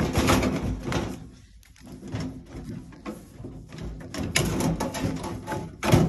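Sheet-metal outer cover of a microwave being worked loose and slid off its chassis: irregular scraping, rattling and clunks of metal on metal, with a sharp knock near the end.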